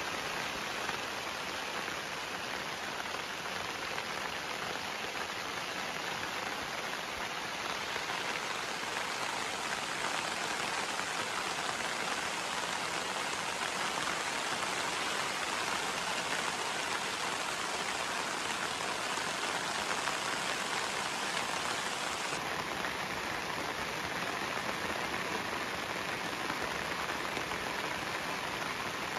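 Steady rain falling, heard from under a camping tarp, a little louder through the middle.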